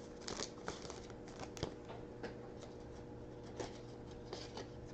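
Faint crinkling and rustling of a trading-card pack's wrapper and the cards inside being handled, with scattered light ticks and one sharper click about a second and a half in.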